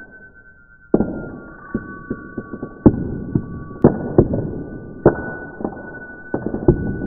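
A string of sharp knocks at uneven intervals, each followed by a long fading tail, over two steady high tones.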